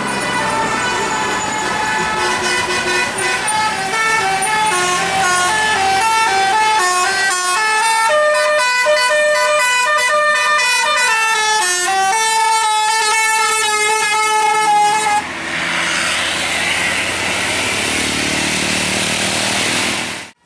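Basuri 'telolet' multi-tone air horn on a tour bus playing a quick stepping melody of short horn notes for about fifteen seconds. A steady rush of noise follows for the last few seconds and stops abruptly near the end.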